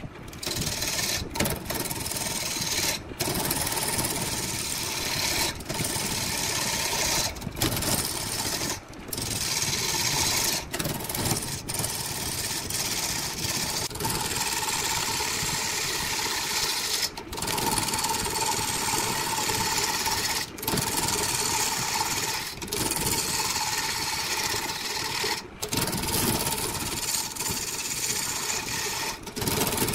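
Woodworking power tools running, a steady dense machine noise broken by short gaps every one to three seconds.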